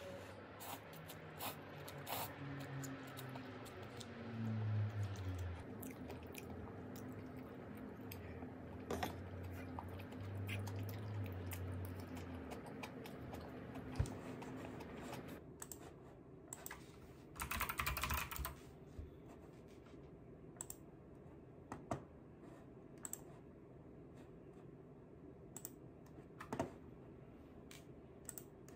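Light clicks and small eating noises from chopsticks in a cup-noodle bowl, then, after about halfway, keystrokes on a computer keyboard: a short quick run of typing followed by scattered single key presses.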